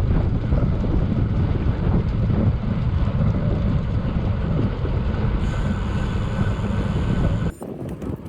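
Wind buffeting the microphone of a camera on a moving bicycle: a steady low rumble of air. About seven and a half seconds in it drops off suddenly, leaving a quieter background with a few clicks.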